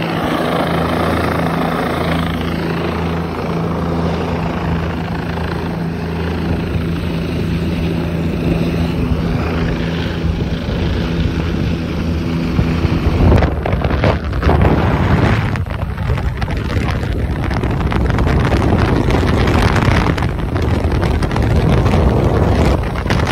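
Helicopter overhead, heard from a person hanging beneath it on a long line: a steady rotor and engine drone with a low hum. About halfway through, the hum gives way to heavy wind buffeting on the microphone as the line is carried up and away.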